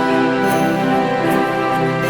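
Background music: steady sustained notes with a light beat.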